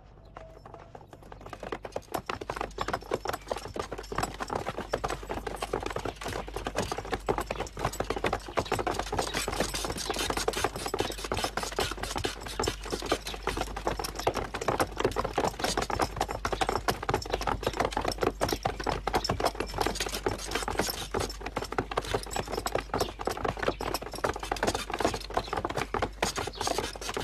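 Many horses' hooves clattering together in a dense, steady patter of quick clicks, fading in over the first couple of seconds.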